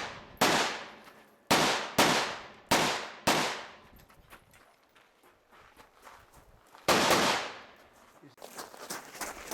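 Rifle gunshots: six shots, the first five in quick pairs over about three seconds and a last one after a pause of over three seconds, each dying away with a short echo. Near the end comes a scatter of small clicks and rustling as the shooter moves.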